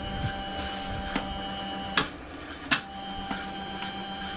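Z-axis stepper motor of a homemade desktop CNC, driven from a homemade step controller and not yet coupled to its lead screw, running with a steady whine. It stops with a click about two seconds in and starts again with a click under a second later.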